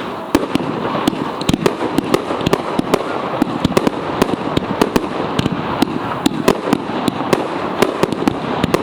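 Fireworks display going off: a rapid, irregular barrage of sharp bangs and cracks, several a second, over a continuous rumble of bursts.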